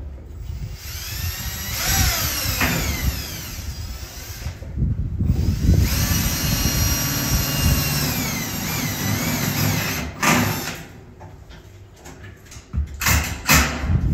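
Power drill-driver driving screws in two long runs of a few seconds each, the motor's pitch sliding up and down as it speeds up and slows under load. A knock follows, then a few more near the end.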